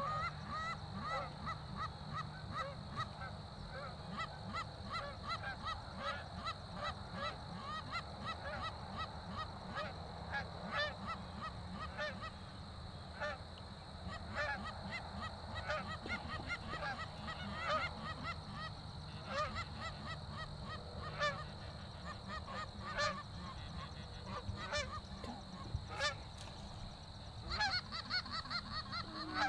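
Canada geese honking in flight: a steady stream of short, repeated honks from a small flock.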